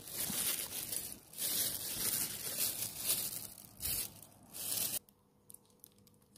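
Clear plastic bags and paper towel crinkling and rustling as they are handled and wrapped around the arms, in several bursts, stopping sharply about five seconds in.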